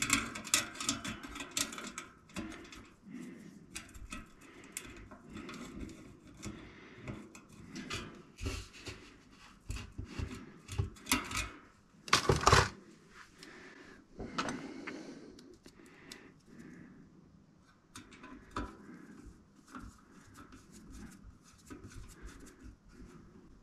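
Small metal clicks, knocks and rattles of bicycle parts and hand tools being handled while fitting parts to a wheel hub. The clicks are busiest in the first couple of seconds, and a single louder clatter comes about halfway through.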